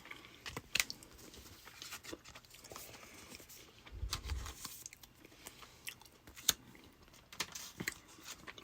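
A person chewing a jelly bean, with faint, irregular mouth clicks and a soft low thump about four seconds in.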